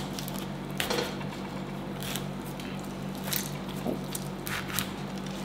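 Knife cutting the leafy crown off a pineapple: a few short, separate cutting strokes and knocks, over a steady low hum.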